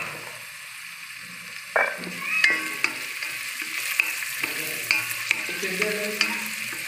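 Chopped onion, green chillies and cumin seeds sizzling in hot oil in an electric rice cooker's aluminium pot, frying toward golden brown. From about two seconds in, a wooden spatula stirs them, scraping and knocking against the pot.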